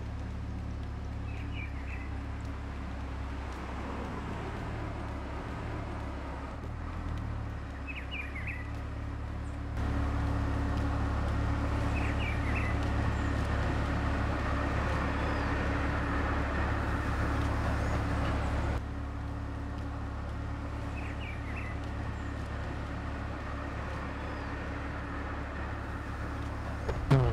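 City street ambience: a steady low rumble of traffic, with a bird chirping briefly every several seconds. The background gets louder about a third of the way in and drops back about two thirds in.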